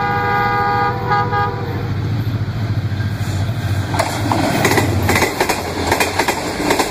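Diesel locomotive horn sounding a chord, stuttering and cutting off about a second and a half in, over the steady rumble of a passing train; from about four seconds in, the coaches' wheels clatter rapidly over the rail joints.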